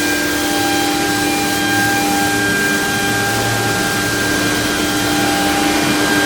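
ELE2128ATC CNC router running: a steady spindle whine made of several even tones over a strong, even hiss.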